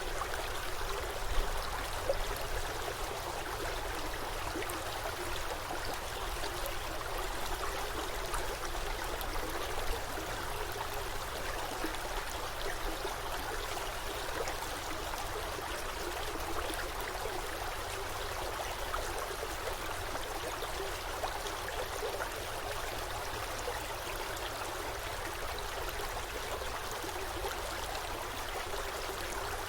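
Forest stream flowing steadily, a continuous rush and trickle of running water, with one brief louder moment about a second in.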